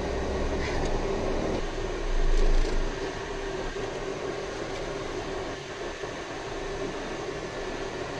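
Steady engine and road noise inside a moving car's cabin, with a constant hum running through it. A louder low rumble swells briefly about two seconds in.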